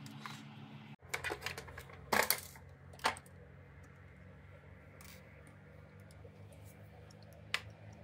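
Sharp clicks and light clatter of a Xiaomi S10+ robot vacuum's plastic housing and parts being handled during dismantling: a quick run of knocks about a second in, two louder clacks soon after, and a single click near the end, over a low steady hum.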